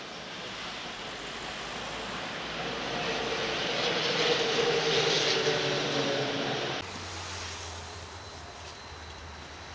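Vintage red museum tramcar drawing near and passing close by, its rolling noise on the rails growing louder with a steady hum of several tones. The sound cuts off abruptly about seven seconds in, giving way to quieter steady street noise with a low hum.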